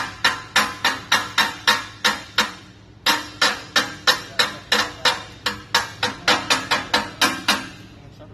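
Chipping hammer striking a freshly laid stick-weld bead to knock off the slag: rapid sharp metal-on-metal strikes, about three or four a second, with a short break about two and a half seconds in and stopping near the end.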